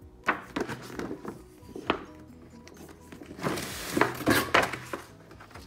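Background music, with a few sharp knocks and a burst of rustling about three and a half seconds in from a model kit's box and paper assembly manual being handled.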